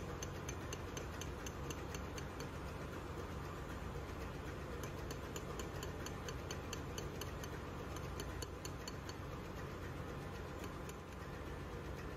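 Light, rapid metallic taps of a hammer, about four a second in two runs, easing the air piston of a MAN B&W exhaust valve down into its air cylinder, over a steady low machinery hum.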